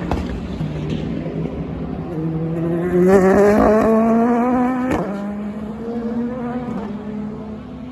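Sports-prototype and GT race cars accelerating out of a corner, their engines rising in pitch through the gears. The loudest car is near about three seconds in, with a sharp crack at about five seconds.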